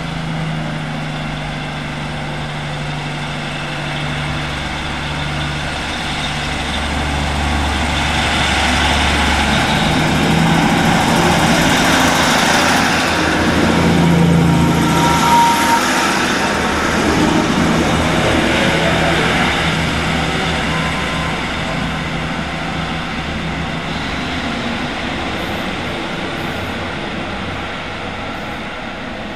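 Class 150 Sprinter diesel multiple unit running on its diesel engines as it comes along the platform. The engine note and rail noise build to their loudest about halfway through, then fade as the train moves away.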